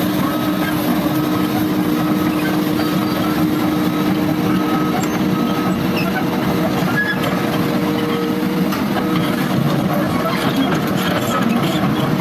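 Heavy construction machine's diesel engine running steadily, with a reversing alarm beeping about once a second that fades out about halfway through.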